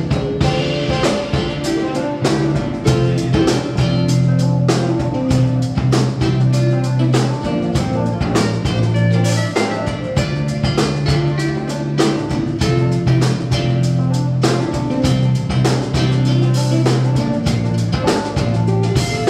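Live band playing an instrumental piece in Andean style, with a steady drum-kit beat, electric bass and acoustic-electric guitars, and panpipes playing near the end.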